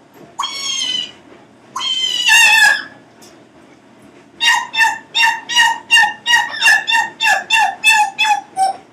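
Congo African grey parrot vocalising: two drawn-out calls with a wavering pitch, then after a short pause a rapid, even run of about fourteen short repeated notes, roughly three a second.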